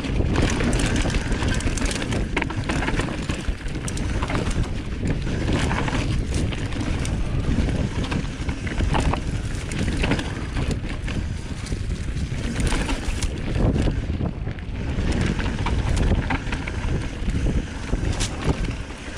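Mountain bike riding down a rough, root-strewn dirt trail: steady wind buffeting on the camera's microphone with frequent knocks and rattles from the bike jolting over roots.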